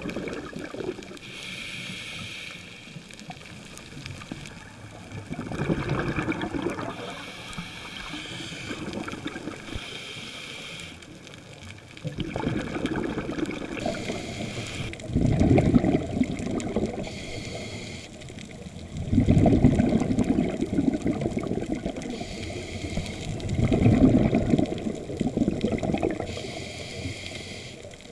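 Scuba diver breathing through a regulator underwater: a short hiss on each inhale alternating with a longer bubbling rumble of exhaled bubbles, repeating every few seconds. The exhales grow louder in the second half.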